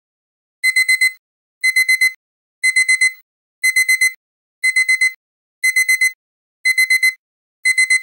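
Digital alarm-clock beeping signalling that the countdown timer has run out: a high beep sounded four times in quick succession, the group of four repeating about once a second. It starts just over half a second in, out of silence.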